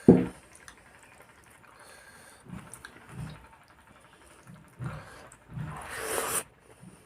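Close-miked mukbang eating sounds: a person chewing and swallowing, with soft low mouth sounds every second or so. A short sharp sound at the very start is the loudest, and a longer breathy hiss comes about six seconds in.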